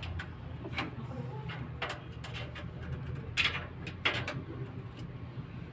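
Sharp clicks and taps of cable plugs being handled and pushed into the back panel of a desktop computer tower, with an Ethernet plug being fitted. There are about four, the loudest two a little past the middle, over a steady low hum.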